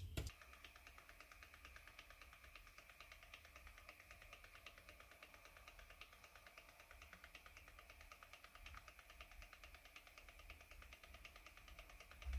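Faint, fast, even ticking after a single click at the start, over a low hum.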